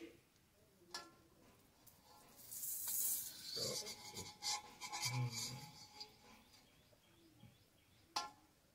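Metal spatula scraping around inside a metal wok, with sharp clinks of the spatula against the pan about a second in and near the end.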